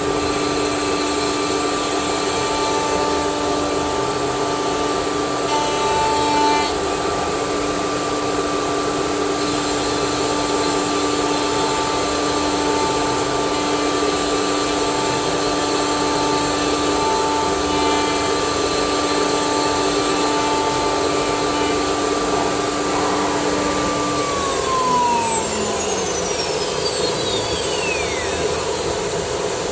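Woodworking CNC router spindle with an HSD aggregate head running at speed with a steady whine and cutting noise, machining wood. About 24 seconds in, its pitch falls away as the spindle winds down.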